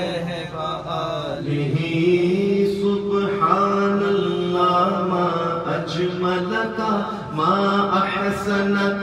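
A man's voice chanting an unaccompanied devotional recitation (naat) into a microphone, in long, drawn-out melodic notes.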